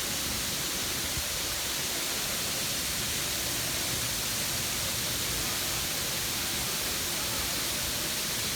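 Steady rushing hiss of water falling from a fountain cascade, even and unbroken. It comes from the museum courtyard's umbrella-column fountain, whose water pours down from the canopy roof.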